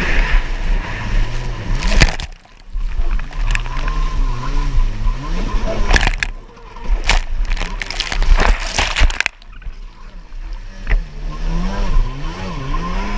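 Stand-up jet ski's engine revving up and down as it races through chop, with water and spray repeatedly hitting the onboard camera. The sound drops away sharply three times, about two, six and a half and nine and a half seconds in.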